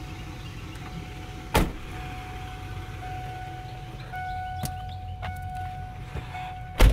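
Van engine running with a steady low rumble and a held whine, broken by two loud thumps: one about a second and a half in and one near the end.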